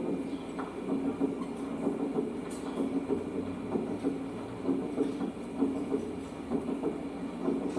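Recorded heart sounds heard through a stethoscope: a steady lub-dub rhythm in which the second heart sound is clearly and constantly split into two separate components, a sign of bundle branch block (given as left bundle branch block).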